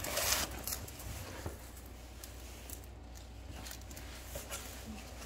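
A cardboard box being lifted and handled, with a brief scuffing noise at the start, then faint handling clicks over a low steady hum.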